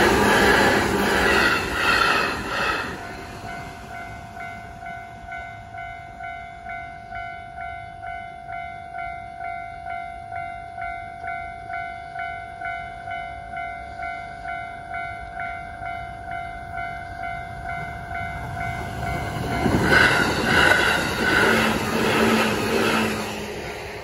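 Japanese level-crossing alarm ringing in even electronic strokes about twice a second. An electric train passes with wheel clacks at the start, and another train passes through with clacks for a few seconds near the end.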